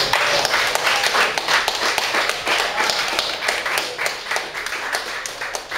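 A small group of people clapping: dense, uneven hand claps that thin out slightly in the last couple of seconds.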